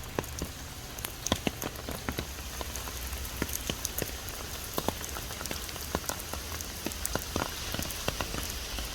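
Rain falling, with many irregular sharp raindrop taps close by over a steady patter and a low rumble underneath.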